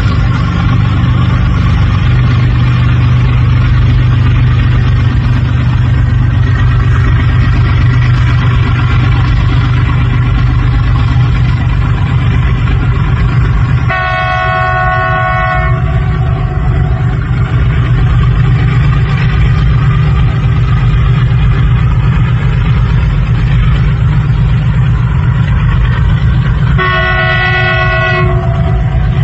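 WDG4G diesel-electric locomotive's engine drones steadily as it hauls a fully loaded goods train, with the wagons rumbling across the bridge. The locomotive's multi-tone horn sounds twice, each blast about two seconds long, once about halfway and once near the end.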